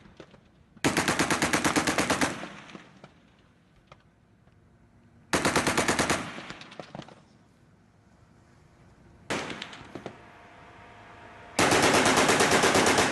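Mk 38 25mm machine gun firing automatic bursts: three bursts of rapid shots, each one to one and a half seconds long, with a single shot between the second and third, each burst trailing off in a fading echo.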